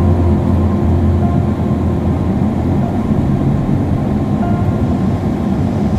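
Car driving along a road, a steady low rumble, with faint background music over it.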